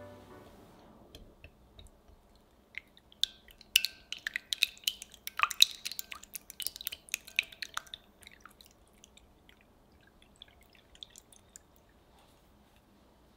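Whisk beating eggs in a glass measuring jug: a quick run of light clicks and taps against the glass with some liquid squish, busiest between about four and eight seconds in, then thinning to a faint stir.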